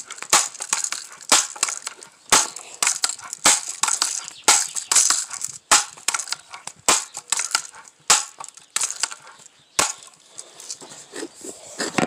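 Close crunching and rustling with sharp, irregular clicks and knocks, one or two a second: handling noise right at a phone's microphone. The clicks thin out near the end.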